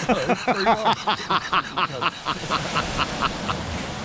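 A man laughing: a run of quick, evenly spaced "ha" pulses that tails off about three and a half seconds in, over the steady wash of surf.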